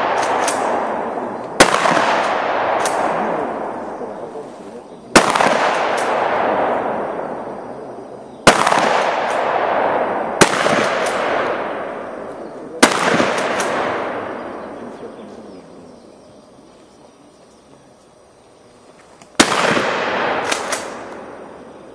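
Shotgun fired six times at uneven intervals of two to six seconds during a competition stage, each shot a sharp blast followed by a long echoing decay. Fainter sharp knocks follow about half a second to a second after several of the shots.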